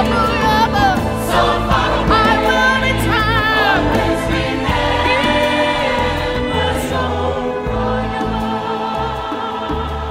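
Music for the dance: a choir and voices singing in gliding, sustained lines over a full low accompaniment.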